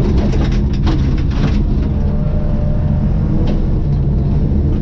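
Rally car engine running hard on a gravel stage, heard from inside the stripped cabin, with gravel clattering against the underbody in a dense burst of clicks over the first second and a half and again briefly about three and a half seconds in.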